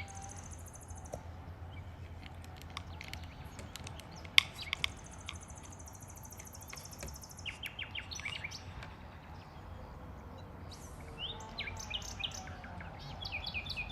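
Songbirds chirping, with high rapid trills early and midway and a run of short falling chirps near the end, over a steady low background rumble; a single sharp click about four seconds in.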